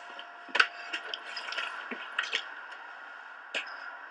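A few light, scattered knocks and clicks, the loudest about half a second in, as someone walks across the boat's floor toward the stern doors, over a steady background hiss.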